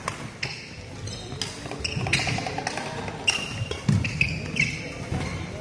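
A badminton rally on a sports-hall court. Several racket strikes on the shuttlecock land about a second apart, shoe soles squeak in short chirps on the court floor, and there are low footfall thuds.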